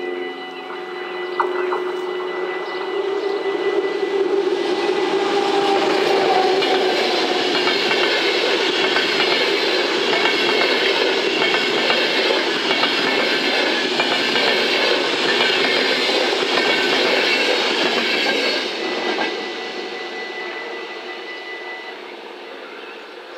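An intercity train of DB passenger coaches passes over the level crossing at speed. Its wheels clatter over the rails, building up over the first few seconds, staying loud for about fifteen seconds, then dying away. The crossing's warning bells ring steadily underneath and stop near the end.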